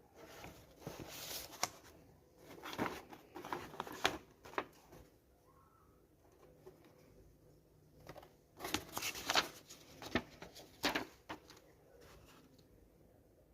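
Handling noise in a small room: three spells of sharp clicks and rustling, with quiet room tone between them.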